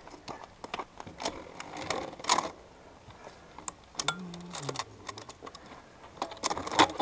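Scott enduro mountain bike rattling and clicking irregularly as it rolls slowly over a rocky dirt trail: chain and parts knocking, with tyres crunching on loose stones. A short low vocal grunt about four seconds in.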